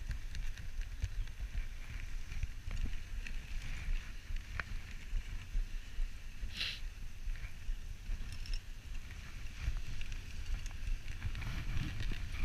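Dog sled gliding over snow behind a running husky team: a steady rumble and hiss of the runners and wind on the microphone, with a few light ticks and one brief louder swish a little past halfway.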